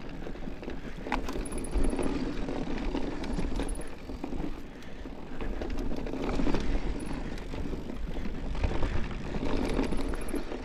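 Mountain bike rolling down a rough dirt trail: a steady rush of tyre and wind noise, heavy in the lows, with the bike rattling and knocking over the bumps.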